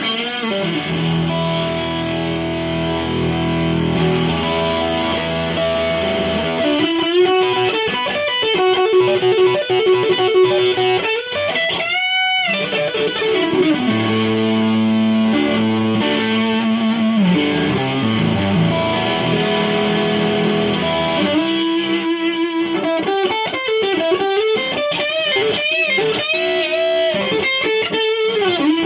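Epiphone Dot ES-335 semi-hollow electric guitar played through a Marshall 5005 amp with light overdrive: held chords and blues lead lines with string bends and vibrato, including a high, wavering bent note about twelve seconds in.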